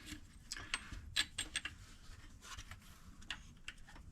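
Scattered light clicks and taps of metal hardware as a bolt is worked in by hand, irregular, with one slightly louder tap about a second in.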